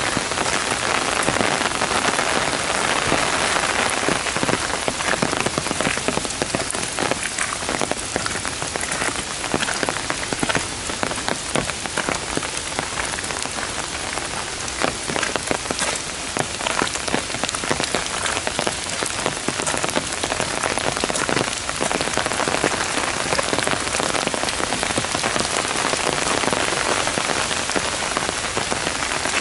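Heavy downpour pelting a gravel path and thick foliage: a dense, steady hiss of rain with many sharp ticks of single drops striking close by.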